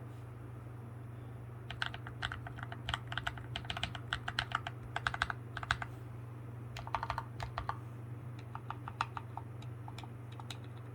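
Typing on a Drop CTRL mechanical keyboard fitted with Akko CS Lavender Purple tactile switches and a foam insert: quick runs of keystrokes, one starting about two seconds in and another after a short pause near the middle, dying out shortly before the end.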